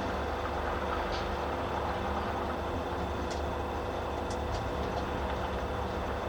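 Steady rumble of distant traffic, with a few short high calls of small birds scattered through it.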